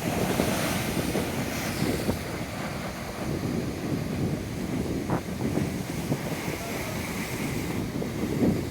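Ocean surf breaking and washing in, with wind buffeting the microphone; the hiss of the wash is strongest in the first couple of seconds.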